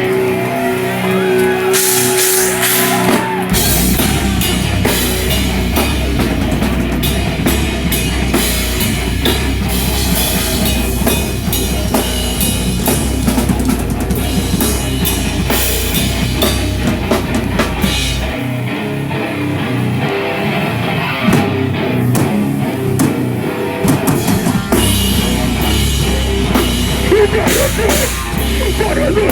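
Rock band playing loud and live, with drum kit, guitar and bass. The heavy low end drops out for about six seconds past the middle, then the full band comes back in.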